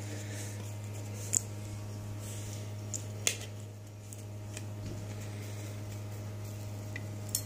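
A steady low hum with three short, sharp clicks spread through it, the sound of small objects being handled.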